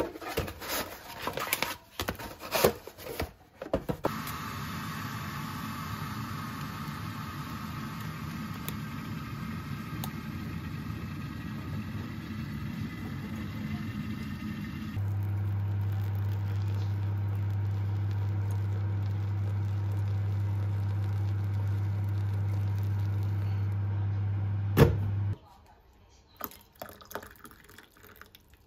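Clicks and knocks of handling for the first few seconds. Then a steady running noise, and from about halfway a loud, deep, steady hum that cuts off with a click a few seconds before the end, followed by faint handling sounds.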